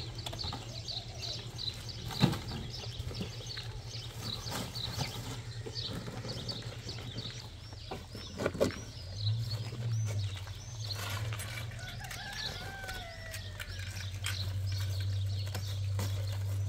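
Small birds chirping over and over, with a rooster crowing once about eleven seconds in. A low steady hum runs underneath, growing louder near the middle, and a few sharp knocks come through.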